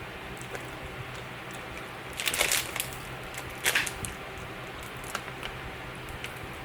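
Close-up sounds of gummy candy noodles being taken out and eaten: two short bursts of crisp clicking and crackling, about two seconds in and again near four seconds.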